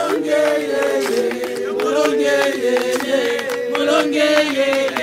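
A group of people singing together, several voices holding and gliding between long notes, with scattered hand claps.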